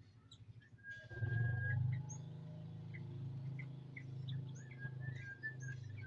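Birds chirping in short, high calls, with a few longer whistled notes, over a steady low hum that starts about a second in.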